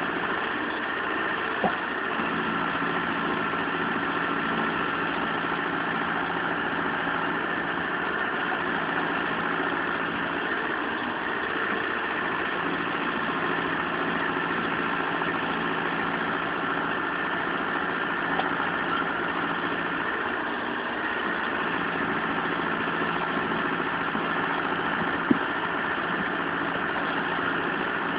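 Mahindra Arjun 605 diesel tractor engine running steadily at an even speed. Two short sharp knocks are heard, one just after the start and a louder one near the end.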